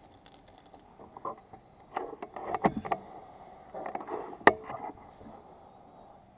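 NHX Reborn air rifle firing a single shot about four and a half seconds in: one sharp crack. A run of small clicks and knocks comes a couple of seconds before it.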